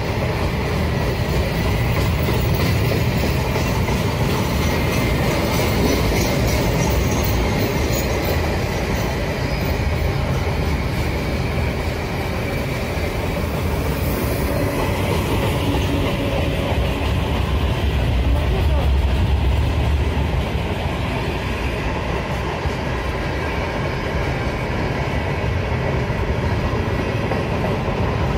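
Container flatcars of a long freight train rolling past close by: a steady rumble of steel wheels on the rails with the clatter of the cars, and faint wheel squeal at times in the first half.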